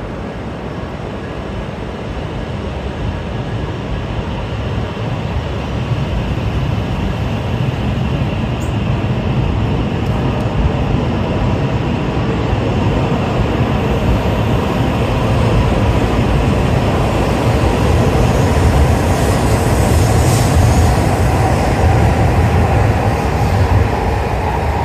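Shinkansen train running: a steady rumble and rushing noise that grows gradually louder.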